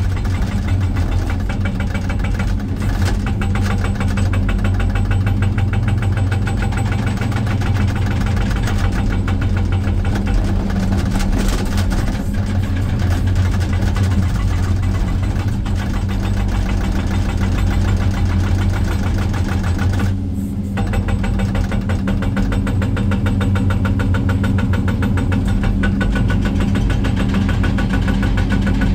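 Excavator-mounted hydraulic breaker hammering rock, heard from inside the operator's cab: a rapid, steady rattle of blows over the excavator's diesel engine running under load. The hammering breaks off briefly about twenty seconds in, then resumes.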